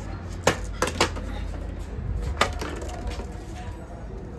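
Empty plastic water bottle kicked and clattering on stone paving: about four sharp knocks in the first two and a half seconds.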